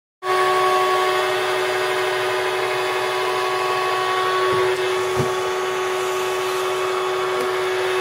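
Motor of a homemade bee vacuum running steadily with an even whine, giving the gentle suction that draws bees through a tube into a collection chamber. It starts suddenly just after the beginning.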